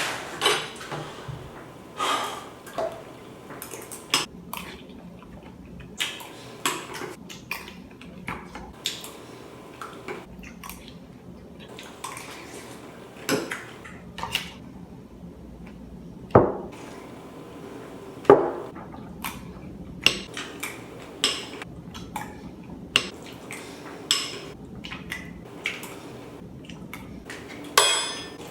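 A spoon clinking and scraping against a bowl as muesli cereal with milk is eaten, in irregular sharp clinks about every second or two.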